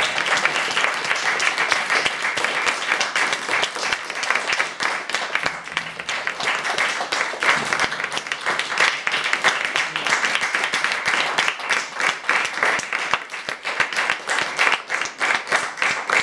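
Audience applauding at the end of a solo double bass piece, with one person's hand claps close to the microphone. The applause thins into more separate claps near the end.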